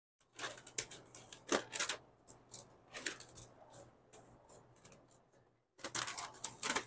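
Handling noise: a run of crinkling rustles and sharp clicks, busier near the end, over a faint low steady hum.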